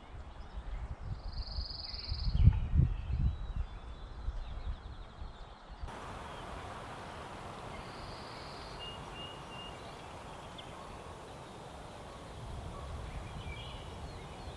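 Outdoor woodland ambience: wind rumbling on the microphone, with scattered bird calls including a short high trill near the start. About six seconds in it changes to a steady hiss with a few faint chirps.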